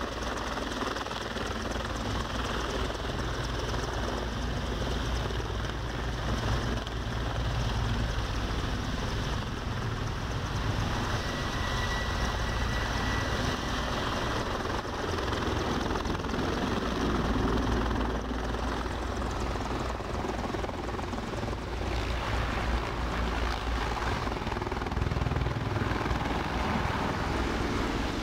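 Mil Mi-24 attack helicopter flying low, its rotor and turbine engines running at a steady level throughout.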